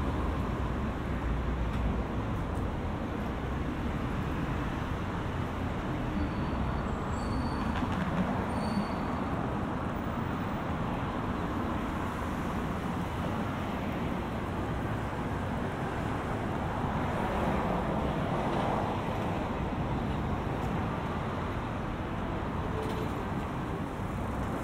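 Steady city road traffic noise: a continuous hum of passing vehicles on an urban street.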